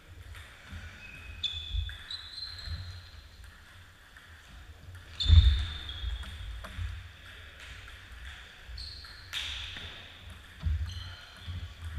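A table tennis rally: the celluloid ball clicks sharply off the bats and the table, while the players' shoes thud and squeak on the wooden gym floor. The heaviest thump comes about five seconds in.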